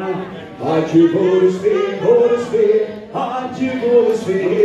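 A man singing a song in phrases, with held and wavering notes.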